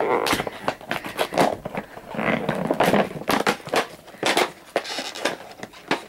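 Irregular rustling, crackling and clicking of a Rubik's Twist box being handled and pried open close to the microphone.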